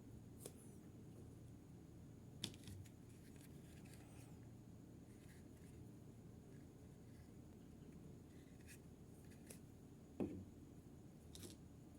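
Near silence broken by a few faint, scattered clicks and taps of small plastic toy pieces being handled, the two most distinct about two seconds in and near the end.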